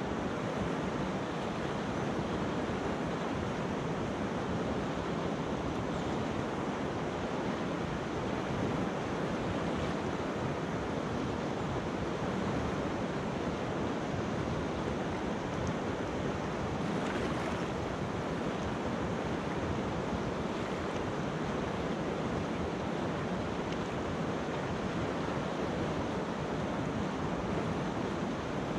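River water rushing over a pebbly bed: a steady, even rush that does not change.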